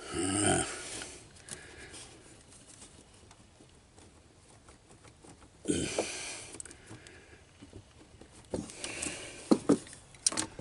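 Small clicks, ticks and scrapes of a steel pick tool working at a push-to-connect air-brake line fitting, denser near the end. There are two short rushing noises about a second long, one at the start and one about halfway.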